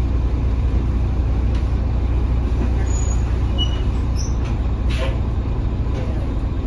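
Rear-mounted Mercedes-Benz OM926 six-cylinder diesel of a Mercedes-Benz OH1830LE bus idling with a steady low rumble, heard from the passenger cabin. There is a brief click about five seconds in.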